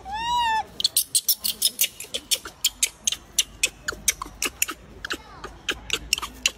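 A macaque gives one short, arched, high-pitched coo call. Then a quick run of sharp clicks follows, about four to five a second.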